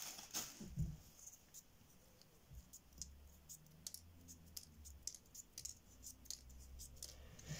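Faint, scattered light clicks of small folded paper origami pieces being handled and gathered up by hand on a table.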